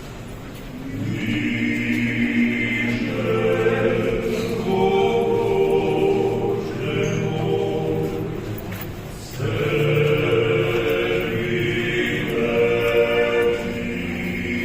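Choir singing unaccompanied, holding long sustained chords; the voices stop briefly about nine seconds in, then come back in together.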